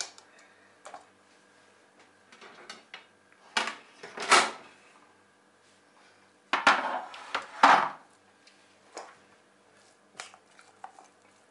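Kitchen cookware clattering in a few separate bursts with quiet between: a heavy pot of baked beans handled and set down on a metal tray, and a fork clinking and scraping against a stainless steel bowl.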